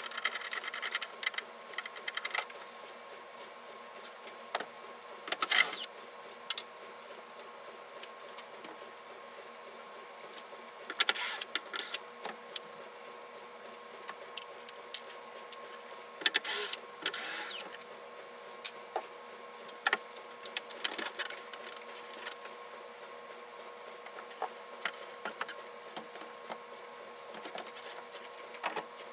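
Scattered clicks and knocks with three short bursts of scraping, from the last pieces of a model railroad layout being pulled off its wooden benchwork by hand. A steady hum runs underneath.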